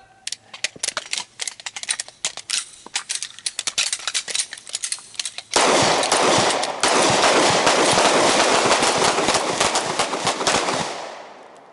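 Handgun gunfire: scattered sharp shots at first, then, about halfway through, a dense run of rapid shots that fades out near the end.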